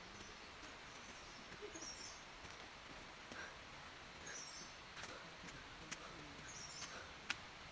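Forest ambience: a bird repeats a short, high call three times, about every two and a half seconds, over a faint steady hiss, with a few sharp clicks.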